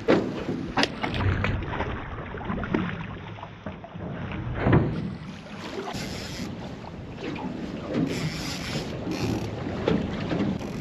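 Wind buffeting the microphone on a small boat at sea, with choppy water splashing against the hull and a few heavier thumps.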